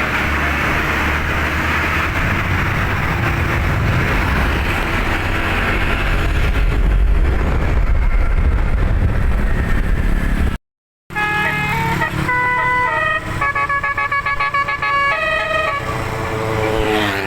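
A vehicle engine runs with road noise. After a cut, a multi-note 'basuri' telolet musical air horn plays a tune of held notes, several sounding together, changing every third to half second. The notes slide down in pitch near the end.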